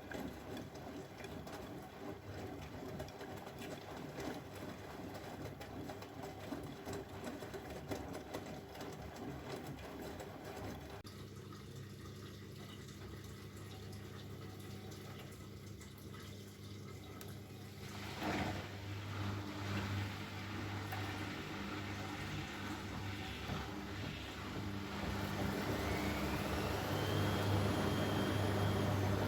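Bosch Maxx WFL 248Y front-loading washing machine running: a steady drum-motor hum with water sloshing in the drum. In the last few seconds the motor speeds up with a rising whine and the sound gets louder.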